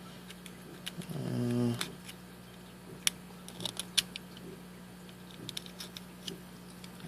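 Small metallic clicks and taps of hands and a tool working at a padlock core, trying to prise off its retaining clip; a short low hum from a man's voice about a second in.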